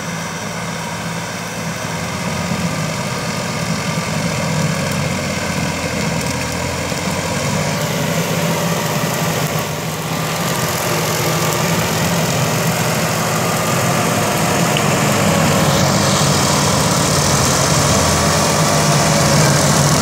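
Massey Ferguson 266 Gold 4x4 tractor's diesel engine running steadily while its rear-mounted shredder chops dry brush, growing louder as the tractor comes closer.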